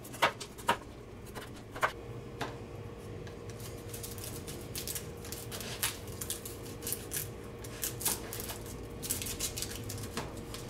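Chef's knife slicing carrot and then a shallot on a plastic cutting board: irregular sharp taps of the blade striking the board, coming closer together in the second half.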